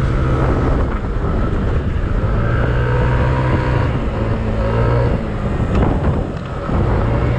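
Yamaha Aerox 155 scooter's single-cylinder engine running steadily at cruising speed, around 65–70 km/h, with road and wind noise. The engine note dips briefly about five seconds in, then picks up again.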